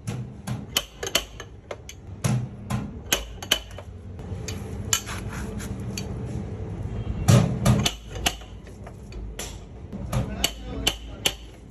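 Repeated sharp metallic taps on a car's sheet-metal body panel, irregular, about two or three a second, with the loudest strikes about seven seconds in: a tool knocking out a dent during paintless dent repair.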